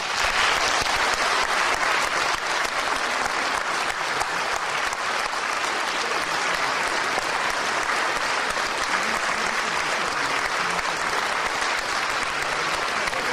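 Concert audience applauding, a dense, steady clapping that holds at an even level throughout.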